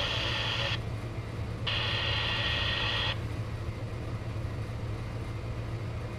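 Shortwave radio static from a Retekess V111 receiver tuned to a weak signal near the 5 MHz beacon: bright hiss cuts in for about a second at a time, at the start and again about two seconds in, over a steady low hum.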